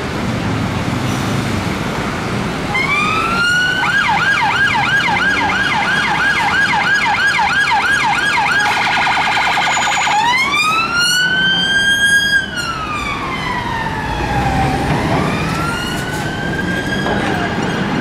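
Siren of a Metropolitan Police Vauxhall Astra Estate responding car, heard over traffic noise. It rises into a fast yelp for about five seconds, then switches to a slow wail that climbs, falls and climbs again.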